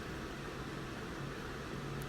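Hot air rework station blowing steadily, a constant fan and air hiss with a faint low hum, while heating solder on a phone logic board.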